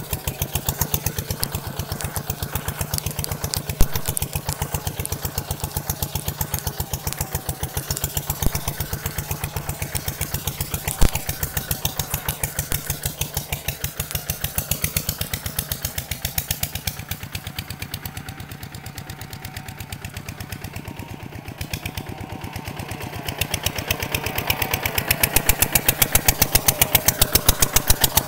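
Kubota tractor engine running with rapid, even firing pulses. It eases off somewhat through the middle and grows louder again about two-thirds of the way through, with a couple of sharp knocks early on.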